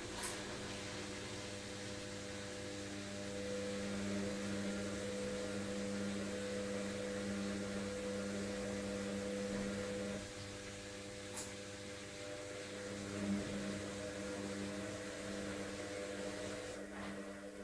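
LOGIK washing machine in its final spin cycle: the drum motor runs with a steady hum and several held whining tones, the level easing slightly about ten seconds in.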